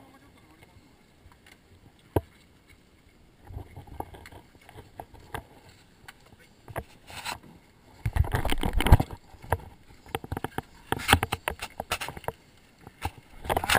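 Neoprene wetsuit rubbing and brushing against a body-worn action camera as canyoning gear is taken off: irregular rustling and scuffing with scattered clicks, a sharp knock about two seconds in, and the loudest stretch of rubbing about eight seconds in.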